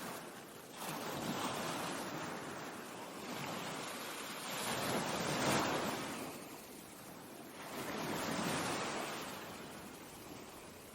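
Ocean waves breaking and washing up, the surf swelling and ebbing three times.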